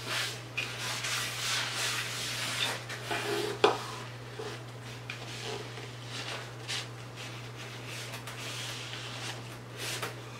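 Paper towel rubbing and wiping across a wooden cutting board, an uneven scrubbing noise, with one sharp knock about a third of the way through.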